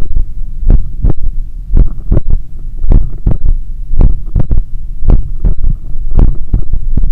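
Heartbeat heard through a stethoscope at the cardiac apex after a run: loud, regular beats a little under one a second, each a close pair of thumps (S1 and S2) followed by a fainter third sound, the third heart sound (S3), over a steady low hum.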